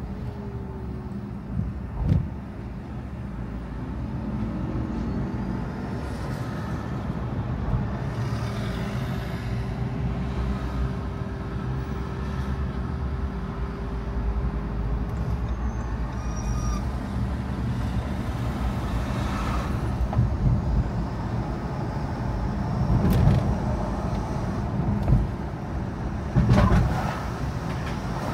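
Car driving on a road: steady engine and tyre rumble with a faint whine that slowly drifts in pitch, and a few thumps, the loudest near the end.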